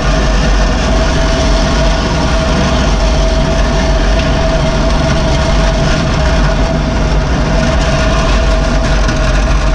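Bobcat 463 skid steer's diesel engine running steadily while the machine drives forward pushing a plow blade, heard close up from on board, with a steady whine over the engine noise.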